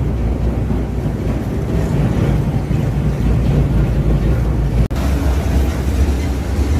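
Industrial single-shaft shredder with a hydraulic pusher ram running under load: a loud, steady low rumble with a rough grinding haze above it. The sound drops out for an instant about five seconds in.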